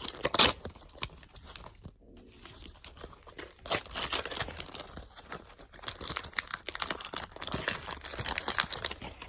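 Plastic toy packaging crinkling and tearing as it is opened by hand, with louder rips about half a second in and around four seconds in.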